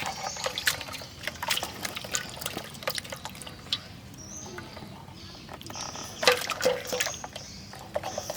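Water splashing and dripping in small, irregular bursts: a cluster of splashes over the first few seconds, then another around two-thirds of the way through.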